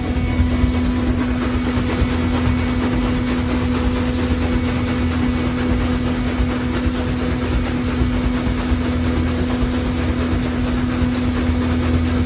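Paddlewheel tour boat underway: its engine and the hydraulic drive turning the stern paddlewheel run steadily, a constant hum over a low rumble, with the wash of churned water behind.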